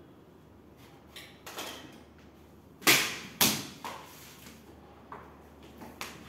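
Hands working a PVC vinyl flooring strip against the floor: light rubbing and scraping, with two loud sharp knocks about half a second apart near the middle, then a few softer taps.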